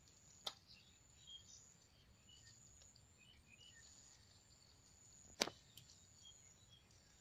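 Near silence outdoors, with faint scattered short chirps and two sharp clicks, the louder one about five seconds in.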